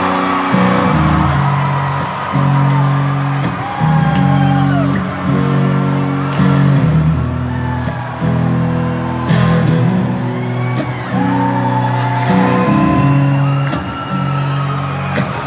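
Rock band playing live, heard from among the audience: an electric guitar plays sustained chords that change every second or two, over a full band. Crowd members whoop and cheer over the music.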